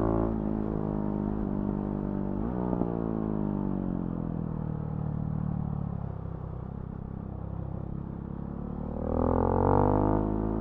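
Husqvarna Svartpilen 701's single-cylinder engine running through its Remus NXT exhaust under way. The revs pick up after a brief break about two and a half seconds in, fall away through the middle, then climb steeply near the end, where it is loudest.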